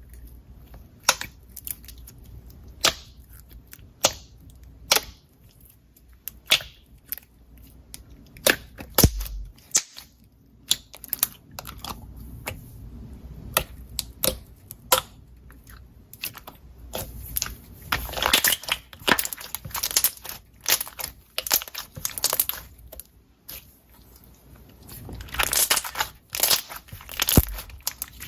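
Slime being squeezed and poked by hand, giving sharp pops and clicks, with denser crackling stretches about two-thirds of the way in and again near the end.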